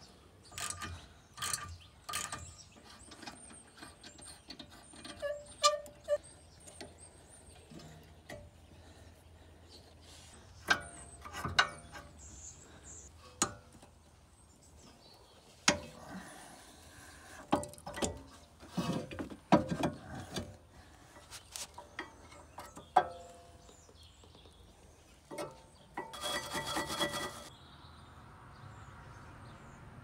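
Socket ratchet clicking on the front brake caliper bolts, among scattered metallic clinks and knocks as the caliper and brake pads are handled; a short rattling clatter near the end.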